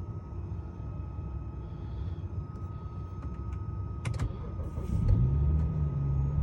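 BMW 335i E90's N55 turbocharged straight-six idling unevenly on a cold start, a rough idle that a mechanic blamed on a failing high-pressure fuel pump. A few clicks come about four seconds in, and about five seconds in the engine note rises and gets louder and steadier.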